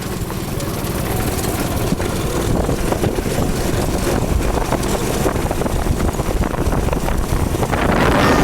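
Small go-kart engine running with a rapid, even beat, growing steadily louder.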